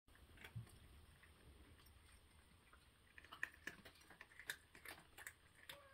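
A cat crunching dry food from a dish: faint, irregular crunching clicks that come thicker from about halfway through.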